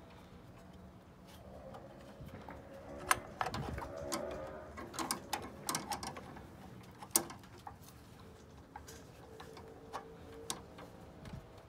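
Steel combination wrenches clinking against each other and the belt tensioner while a serpentine belt is fitted by hand: a run of irregular sharp metal clicks and taps, busiest in the middle, with two louder clanks.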